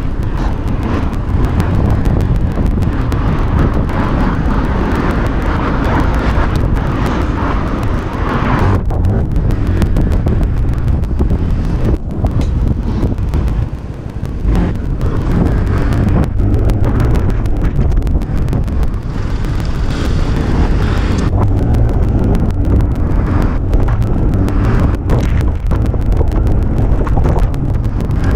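Wind buffeting the microphone over the running engine of a Yamaha Cygnus 125 scooter, a single-cylinder four-stroke, as it rides through town traffic. The level dips briefly about halfway through.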